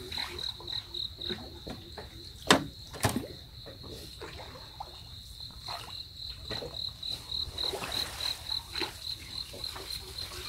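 An insect chirping steadily in a high, even pulse, about four chirps a second. Two sharp knocks sound close together about two and a half seconds in.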